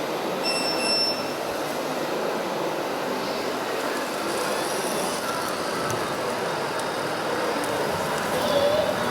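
Small electric motors and gearboxes of radio-controlled model trucks and tractors running, a steady mechanical whirr. A short high-pitched beep sounds about half a second in.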